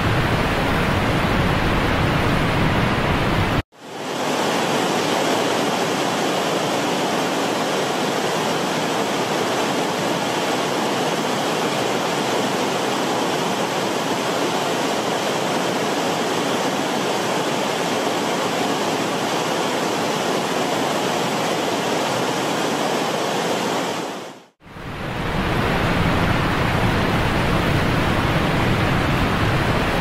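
Steady rush of falling and running water. It cuts out twice, about four seconds in and again a few seconds before the end, and comes back each time with a changed tone: the long middle stretch has less low rumble.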